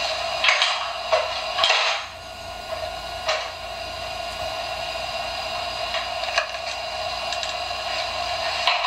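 A few short plastic clicks and rattles, most in the first two seconds and two more around six seconds in, from a baby handling the activity panel of a push-along baby walker toy, over a steady hum.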